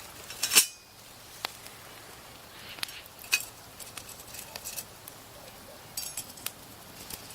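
Metal camp cookware clinking and knocking: a sharp clink about half a second in, then scattered lighter clinks over a faint steady hiss.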